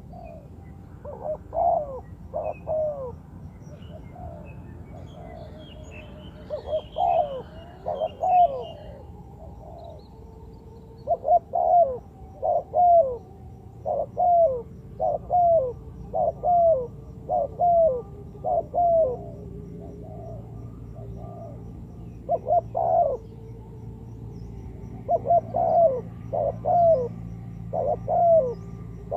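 Spotted dove cooing: short phrases of mellow notes that fall in pitch, repeated in runs with brief gaps, most densely in the middle. A few faint higher chirps from small birds come in early on, over a steady low hum.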